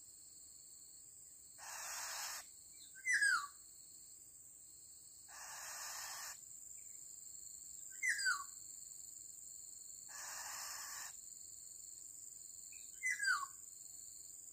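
Black-naped oriole calls repeated at even spacing, as from a lure recording. Three times, a harsh rasping note lasting about a second is followed a second later by a short, loud falling whistle. A steady high insect drone runs underneath.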